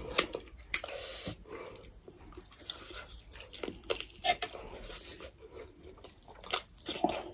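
Two people eating by hand close to the microphone: chewing, lip-smacking and wet mouth clicks, coming irregularly and unevenly loud.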